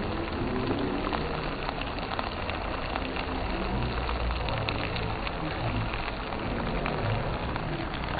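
Dakgalbi with melting cheese sizzling steadily in a large tabletop pan, with scattered light clicks.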